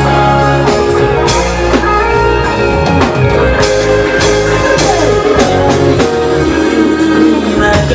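Loud amplified music over a PA, with guitar, bass and a steady drum beat.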